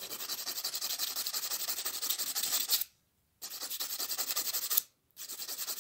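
Coarse emery nail file rasping across a dog's claw in quick, short back-and-forth strokes, several a second. It stops briefly about three seconds in and again near the end.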